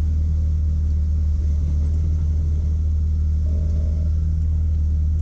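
Off-road vehicle's engine idling steadily while stopped, heard from the dashboard as an even low rumble.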